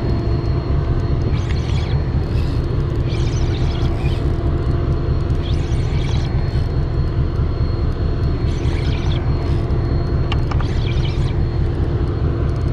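Steady low engine rumble with a constant hum, and short hissy swishes at irregular intervals every second or two.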